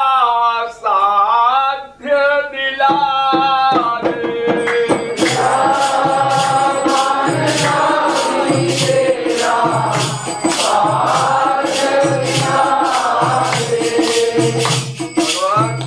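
A devotional chant: a man's voice sings the first line of a Hindi couplet alone. About five seconds in, a group chorus takes it up, with jingling hand percussion and a drum beating about once a second.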